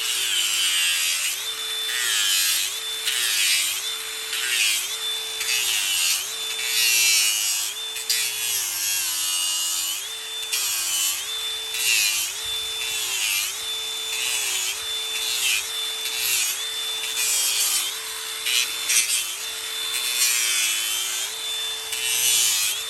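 Electric grinder with a coarse 36-grit disc grinding down a horse's hoof wall. Its motor pitch dips and recovers about once a second as the disc is pressed into the hoof, over a gritty rasping hiss.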